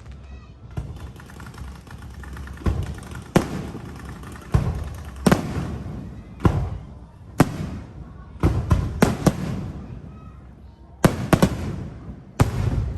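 Fireworks going off: a dozen or so sharp bangs at uneven intervals, several in quick clusters of two to four, each trailing off in a rumble and crackle.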